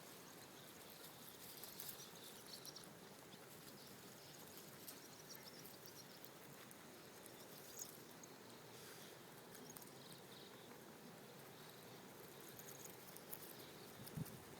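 Near silence: faint outdoor ambience with scattered soft high ticks and rustles, and one low thump near the end.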